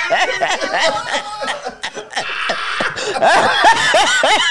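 A small group of people laughing hard, in quick repeated bursts of laughter, with a breathy, wheezing stretch a little after the middle.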